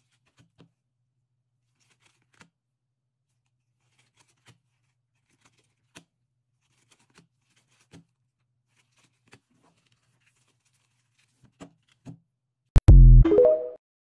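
Faint, sparse clicks and snaps of trading cards being slid and flipped one at a time by gloved hands, about one every second or two. Near the end comes a loud deep thump, then a short electronic jingle: the TikTok end-screen sound.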